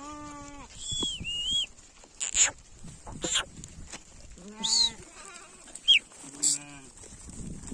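Sheep in a moving flock bleating three times, spaced a few seconds apart. Between the bleats come a high, wavering whistle and a few short sharp noises.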